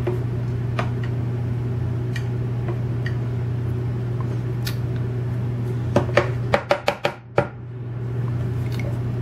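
Small metal clicks and taps as steel springs and pins are set down with a metal tool in a wooden pin tray while a Welch mortise lock cylinder is dismantled. About six seconds in comes a quick run of louder clicks and knocks as the cylinder is handled. A steady low hum runs underneath.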